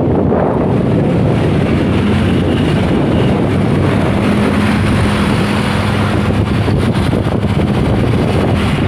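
Heavy truck engine running with a steady low drone, mixed with wind noise on the microphone.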